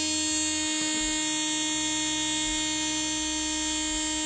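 Dremel rotary tool with a felt polishing disc running steadily at constant speed, an even motor whine.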